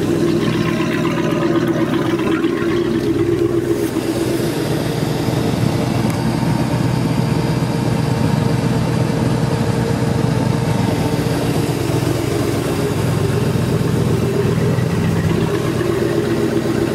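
An engine running at a steady idle, unchanging in pitch.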